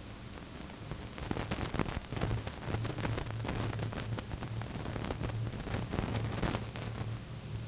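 Steady hiss and low hum from a worn analogue video recording, with irregular crackling that starts about a second in.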